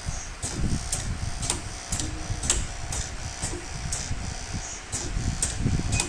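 Pneumatic connector insertion and extraction force tester cycling automatically. Its air cylinders push and pull the connectors, giving repeated sharp clicks roughly every half second to a second over a low rumble.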